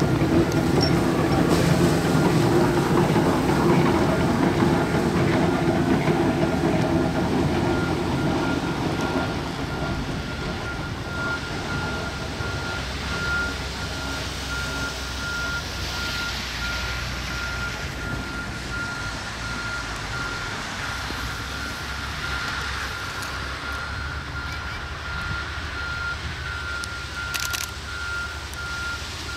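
Fukui Railway Deki 11 electric locomotive, pushing a snowplough, running past with a loud low machine hum that fades after about nine seconds as it pulls away down the street track. A high repeating electronic beep runs steadily underneath.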